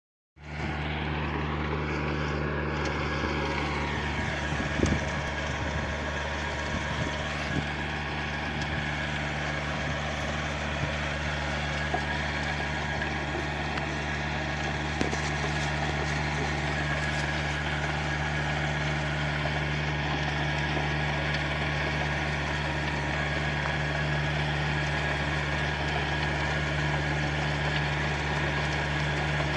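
Farm tractor engine running steadily under load while it pulls a rotary tiller bed-former through the soil, a constant low drone. A faint whine rises and then falls in the first few seconds.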